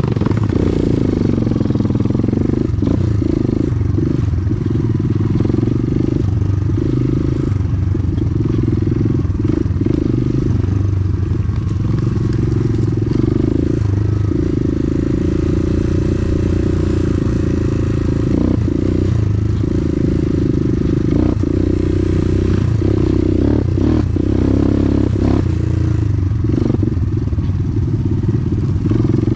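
Motorcycle engine running steadily while being ridden, with frequent short knocks and rattles.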